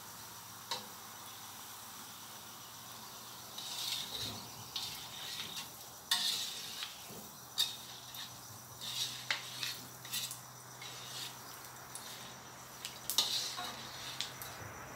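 Shredded lemongrass frying in oil in a steel wok with a faint steady sizzle. A metal skimmer scrapes and clinks against the wok again and again as the strands are stirred and lifted out; the clinks are the loudest sounds.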